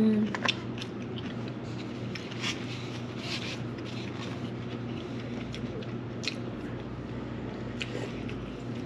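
People eating: chewing, with scattered small clicks and taps of chopsticks against food containers, over a steady low hum.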